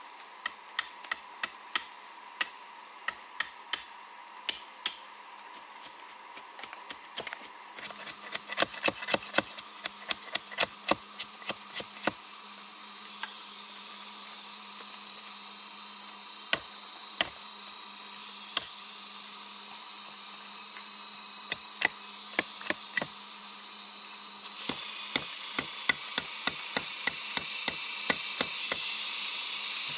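Repeated sharp knocks in irregular runs, like a hand tool striking wood, over a steady high hiss that grows louder twice.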